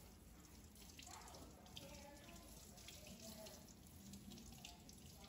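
Faint sizzling of a porterhouse steak searing in olive oil in a cast-iron skillet, a steady hiss with scattered small crackles and pops.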